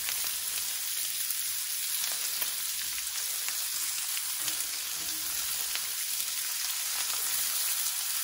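Sliced smoked sausage and bacon frying in a cast iron pan: a steady sizzle as the pieces brown. Occasional light clicks come through while the pieces are turned with tongs.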